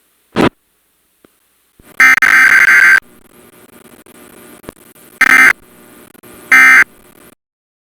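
Emergency Alert System SAME digital data bursts over weather radio, typical of the end-of-message code that closes a Required Weekly Test. There are three bursts of buzzing data tones: the first about a second long, starting about two seconds in, then two shorter ones closer together, with faint radio hiss between them. A brief pop comes just under half a second in.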